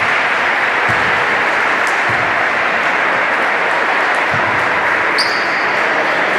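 Steady din of spectators clapping in a reverberant sports hall, with a few dull thumps of a basketball bouncing on the wooden floor.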